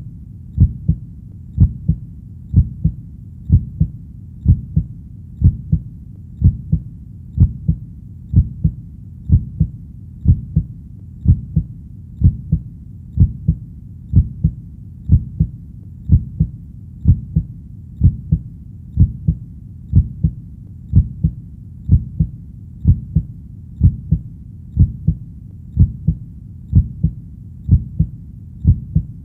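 Heartbeat: steady low double thumps (lub-dub), about one beat a second, in an even rhythm.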